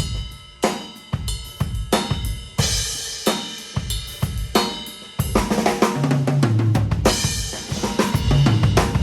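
Full acoustic drum kit played in a steady groove for a soundcheck: kick, snare, hi-hat and cymbals. About five seconds in the playing gets louder and busier, with low pitched drum notes under the cymbals.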